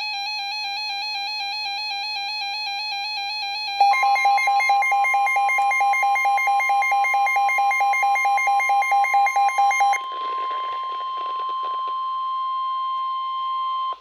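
Weather alert radios sounding a flood warning: a warbling electronic alarm, then from about four seconds a rapid beeping alarm over the long steady NOAA Weather Radio warning tone. The beeping stops about ten seconds in while the steady tone holds until it cuts off at the end, the sign that the spoken warning message follows.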